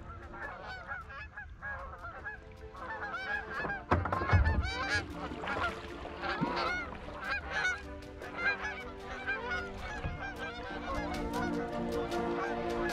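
A flock of geese honking, many calls overlapping, as the birds fly low over the water. A dull low thump about four seconds in.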